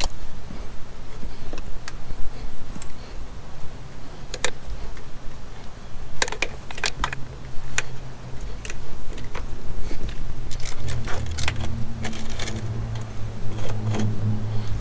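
Small clicks, taps and rattles of plastic and metal engine parts as the fuel injectors and fuel rail of a Sea-Doo Rotax engine are handled and pressed back into place. A low steady hum comes in near the end.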